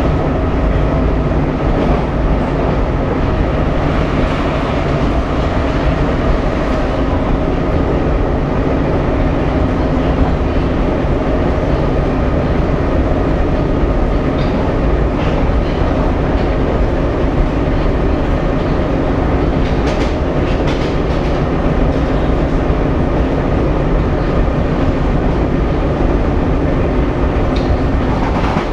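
Budapest M2 metro car heard from inside while running at speed: a steady rumble of wheels on rail with a humming drive tone, and a few brief sharp clicks about twenty seconds in.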